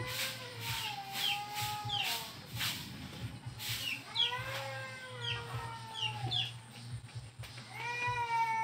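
Chickens calling: three long drawn-out notes with short high peeps between them, and a run of sharp clicks during the first four seconds.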